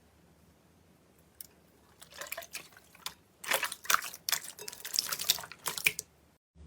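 Slime being handled, making wet, sticky clicks and pops. The sounds start about two seconds in, come thickest in the second half, and stop shortly before the end.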